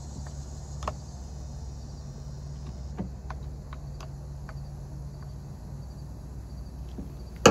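Scattered light clicks and taps of hand tools and small parts as the carburetor is refitted to a string trimmer engine, ending in one sharp, loud click. Underneath are a steady low hum and faint cricket chirping.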